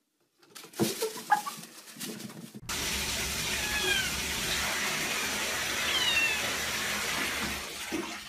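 A few short knocks, then toilet water rushing steadily for about five seconds. Over it a cat gives two short, high, falling meows.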